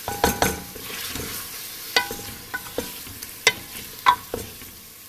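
A spoon stirring raw chicken pieces in a metal pot as they fry: about eight sharp knocks and scrapes against the pot, some with a brief metallic ring, over a low sizzle.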